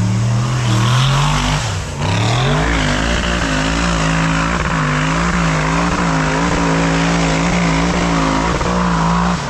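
High-horsepower off-road hill-climb vehicle's engine at full throttle. The revs climb for about two seconds, dip briefly, then hold high and waver up and down over a constant noisy hiss. The sound cuts off abruptly near the end.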